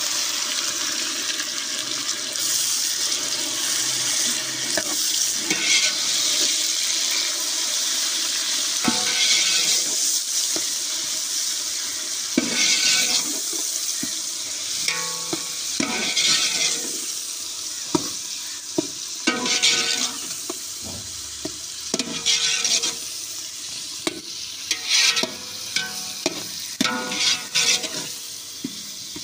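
Chopped tomatoes sizzling in hot ghee with fried onions and green chillies in an aluminium pot. A long steel ladle is stirred and scraped around the pot in repeated strokes that ring against the metal. The sizzle eases off somewhat in the second half.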